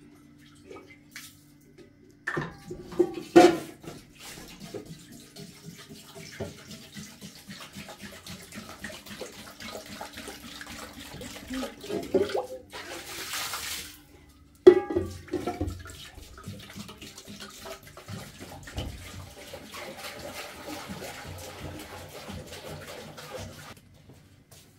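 Water pouring from a plastic jerrycan into an aluminium cooking pot, splashing as the pot fills, with a few sharp clunks. The loudest clunks come about three seconds in and just after a brief pause past the halfway point, and the pouring stops near the end.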